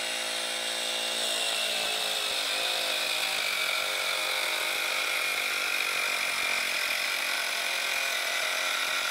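Cycplus Dwndpump A14 cordless electric bike pump running continuously as it inflates a 25 mm road tyre toward 90 PSI, a very loud motor-and-compressor buzz. Its high whine sinks slightly in pitch over the first few seconds, then holds steady.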